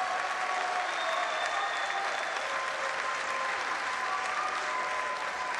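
Football stadium crowd cheering and applauding a goal: a dense, even crowd noise with a few long held tones running through it.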